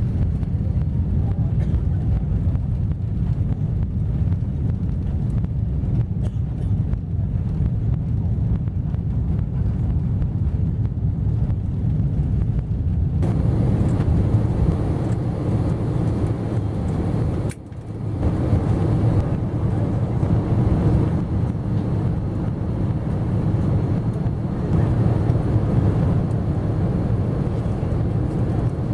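Steady low rumble inside the cabin of a Boeing 777 moving on the ground, jet engine and airframe noise heard from a passenger seat. A little before halfway it grows fuller and slightly louder, with a brief drop a few seconds later.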